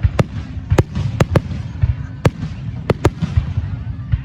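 Aerial fireworks display going off: about seven sharp cracks at irregular intervals over a continuous low rumble of booming shell bursts.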